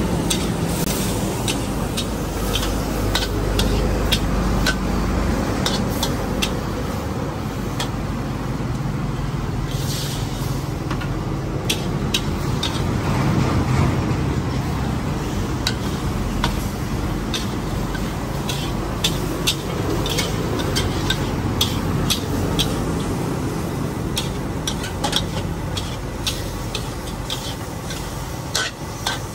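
Stir-frying in a steel wok: a metal spatula scrapes and clacks against the wok over a steady sizzle of octopus and vegetables. The clacks come more often in the second half, over a low steady rumble.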